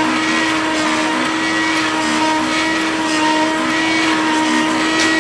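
Small rotary engraving machine engraving a leather wristband: its spindle motor runs with a steady whine, while short lower tones come and go underneath.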